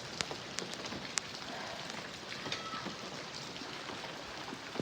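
Torrential rain falling steadily, with scattered sharp ticks of drops striking close by.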